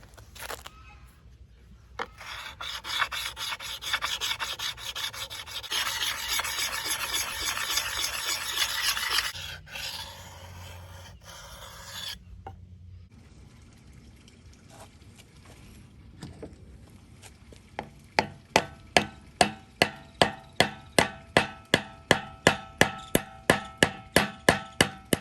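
Wood being rasped in steady strokes for several seconds while the axe handle is shaped. Later comes a quick run of about twenty hammer blows, roughly three a second, each with a short metallic ring.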